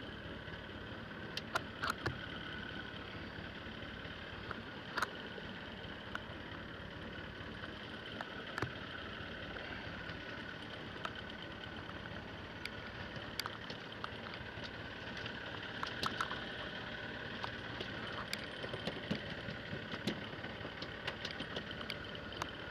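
A boat engine runs steadily at a constant pitch, with sharp clicks and knocks scattered over it.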